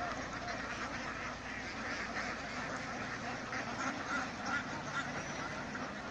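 A large flock of Kuttanad ducks quacking continuously, many calls overlapping into a steady chatter.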